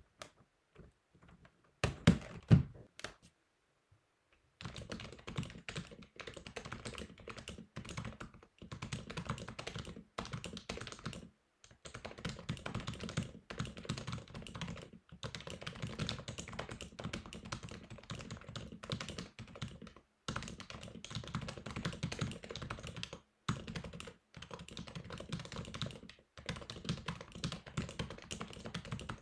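HHKB Pro 2 keyboard with Topre switches, its housings lubed with 205 and fitted with silencing rings, being typed on. A few loud keystrokes come about two seconds in, then a short pause, then fast continuous typing with brief breaks. Two of its standoffs are broken, which the owner says may make the sound a little inconsistent.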